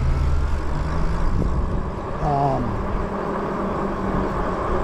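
Riding noise from an e-bike moving along a paved street: a steady rush of wind and tyre noise, heaviest and lowest in the first second. A short voiced hum comes about two seconds in.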